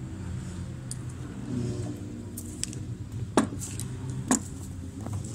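Metal objects clinking several times, with two louder sharp clanks about three and a half and four and a half seconds in, over a steady low hum.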